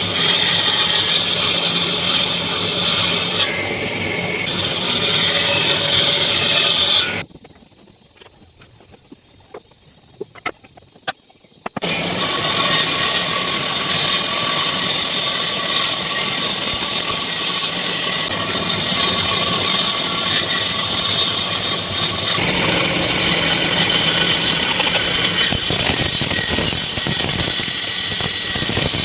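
Drum sander abrading wood, a loud, steady rough sanding noise. About seven seconds in it drops away for about five seconds, leaving a faint high whine and a few clicks, then the sanding resumes.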